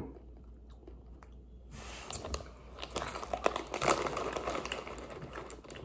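Close-up crunchy chewing of Buc-ee's Beaver Nuggets, caramel-coated corn puffs, as a dense run of small crisp crackles starting about two seconds in.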